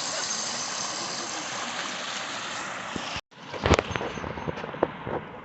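Waterfall on a creek, its water rushing in a steady even roar. It cuts off abruptly about three seconds in, and is followed by a quieter stretch with a few sharp knocks and thuds.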